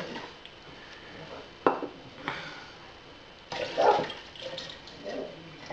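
Glassware clinking and knocking on a wooden tabletop as glass jars and a glass measuring cylinder are picked up and set down. There is a single sharp knock about a second and a half in, and a busier clatter, the loudest part, a little past halfway.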